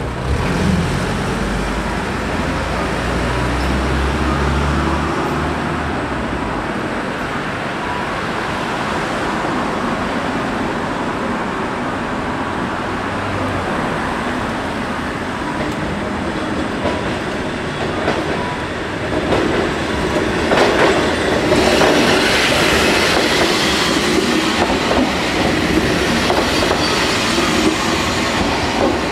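Fukui Railway 200 series electric railcar running along street track. It grows louder as it approaches and passes close by about two-thirds of the way through, its wheels clacking over the rail joints.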